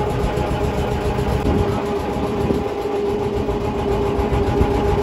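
River launch's engine running steadily, a constant low rumble with a steady hum.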